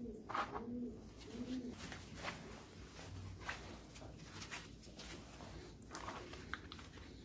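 Light clicks and knocks of plastic parts being handled as a Renault Mégane II steering-column combination switch is taken apart. Soft cooing, like a pigeon's, sounds in the background during the first couple of seconds.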